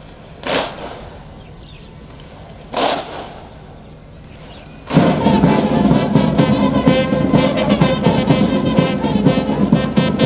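Two loud single strikes about two seconds apart, each ringing briefly, then a military brass band with drums strikes up about five seconds in and plays loudly.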